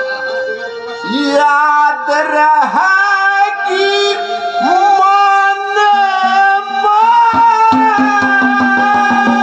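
A man singing a Haryanvi ragni in a strong, wavering voice over a held keyboard accompaniment; a quick, even drum beat comes in about three-quarters of the way through.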